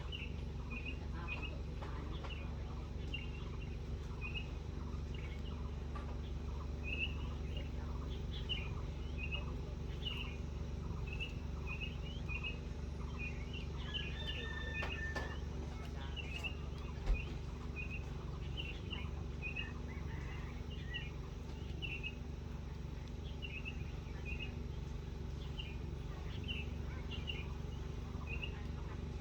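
Birds chirping in short repeated calls, one or two a second, over a steady low background rumble. A single sharp knock about seventeen seconds in.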